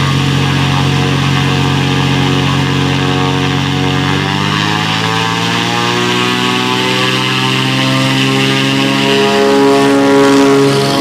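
Cessna 206's six-cylinder piston engine and propeller running at full takeoff power with a steady, loud drone. The pitch of the drone shifts about four seconds in and it grows loudest near the end.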